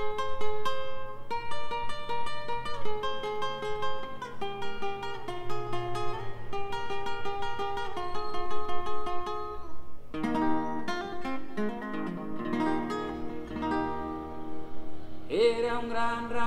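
Solo acoustic guitar picking a melodic introduction of single notes and chords, moving to lower chords about ten seconds in. A man's singing voice comes in near the end.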